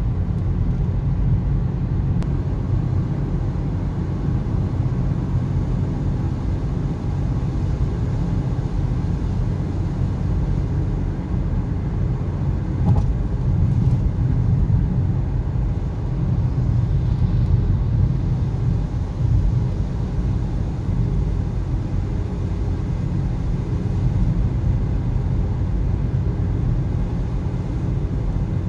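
Steady low rumble of a car at motorway speed on a wet road, heard inside the cabin: tyre and road noise with the engine underneath.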